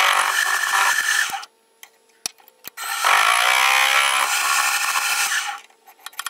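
End mill spinning in a metal lathe's chuck, milling a part clamped on the cross slide. The cutting noise stops about a second and a half in, a few light clicks follow, then the cut starts again about three seconds in, its pitch rising as the cutter bites, and stops shortly before the end.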